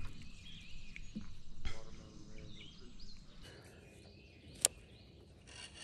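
Quiet outdoor pond ambience with faint bird chirps, a brief rustle about two seconds in, and a single sharp click about four and a half seconds in.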